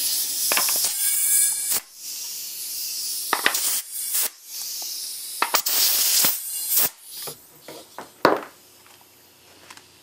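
Compressed air from a shop air line hissing through a cheap, hissy tire chuck pressed onto the Schrader valve of a homemade pop-bottle pressure cap as the bottle is pressurized. The air comes in several bursts with short gaps and sharp clicks between them, ending with a louder click about eight seconds in.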